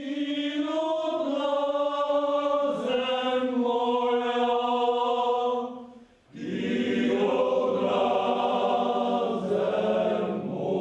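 A choir singing long held notes. The phrase ends about six seconds in, and a fuller phrase with lower voices begins.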